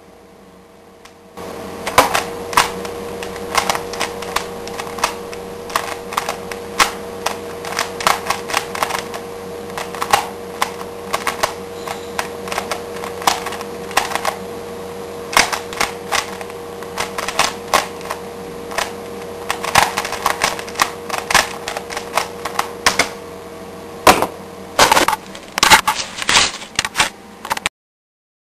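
3x3 Rubik's cube being speedsolved: rapid, irregular plastic clicking and clacking of the layers being turned, several turns a second, over a steady faint hum. It cuts off abruptly near the end.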